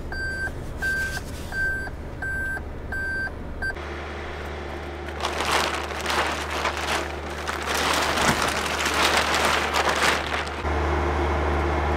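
A car's warning chime beeping about six times, evenly spaced, over a steady low hum, and stopping after about four seconds. Then comes rustling noise, loudest from about five to ten seconds in, as the tarp over the SUV's open tailgate moves.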